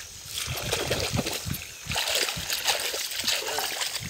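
Irregular splashing and sloshing of shallow, muddy creek water as hands and a drag net are worked through it among mud and weeds.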